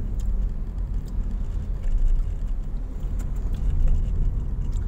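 Honda Mobilio's engine and road noise heard inside the cabin while driving: a steady low rumble, with a few faint clicks and rattles.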